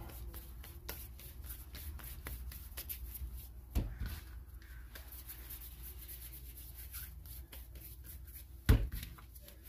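Hands pressing and rolling bolillo bread dough on a floured plastic cutting board, a soft rubbing, with two dull thumps, about four seconds in and a louder one near the end.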